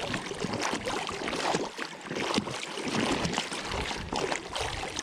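River gravel and mud being shaken and washed in a sifting screen in shallow water: steady splashing with stones rattling and clicking against each other.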